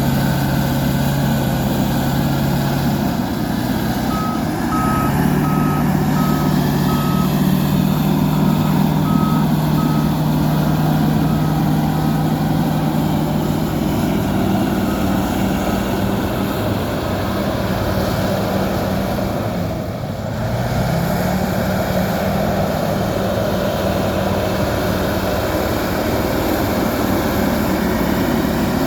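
Fiat-Kobelco FD300 crawler bulldozer's diesel engine running, its engine speed stepping up and down several times as it works. A reversing alarm beeps about twice a second from about four seconds in, growing fainter and dying away about two thirds of the way through.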